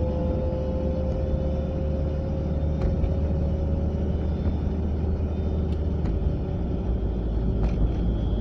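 Volvo 940 driving at about 30 to 40 mph: a steady road and drivetrain rumble with a whine that rises slightly in pitch over the first few seconds, then fades. The noise comes from the passenger side, and its cause is unknown to the owner.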